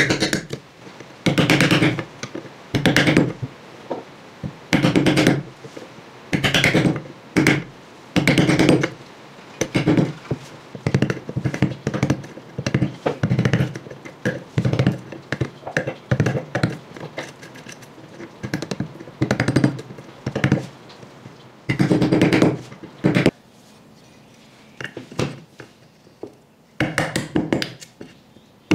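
A hand tool working wood in a run of repeated strokes, each about half a second to a second long, coming roughly every second and a half. It pauses for a few seconds with only light ticks near the end, then the strokes start again.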